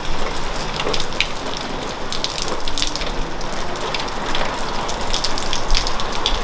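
Steady rain falling, with scattered sharp drops splashing close by.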